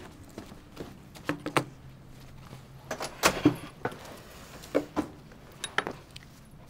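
Someone setting belongings down on a table and handling a bag: a string of sharp knocks, clicks and rustles, loudest about halfway through and again near the end.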